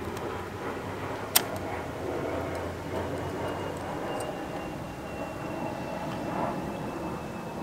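Steady low background noise with a faint hum, broken by one sharp click about a second and a half in. A faint thin high tone comes in about halfway through.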